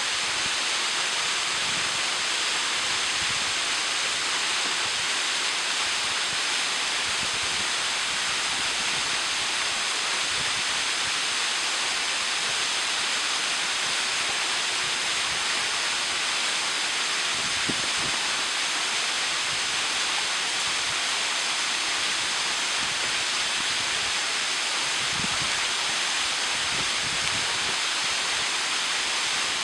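Ohau Stream waterfall pouring into its pool: a steady, unbroken rush of falling water.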